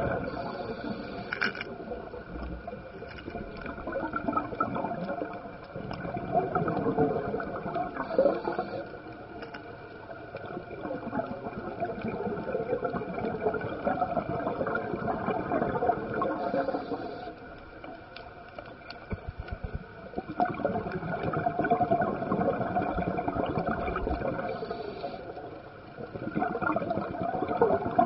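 Scuba diver breathing through a regulator underwater: bubbling, gurgling exhalations that swell and fade about every seven or eight seconds.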